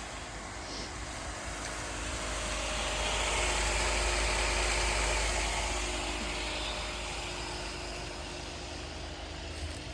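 Pool pump motor running with a steady hum. A broader hiss swells in the middle and fades away again.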